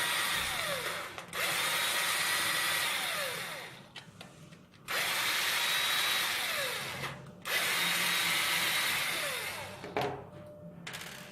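Electric screwdriver running in four spurts of about two seconds each, backing out the four screws of an RC truck's front bumper assembly.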